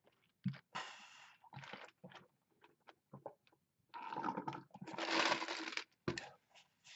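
Cola sucked through a plastic straw from a large paper fountain-drink cup: short sips, then a longer, louder noisy sip about four seconds in that lasts nearly two seconds.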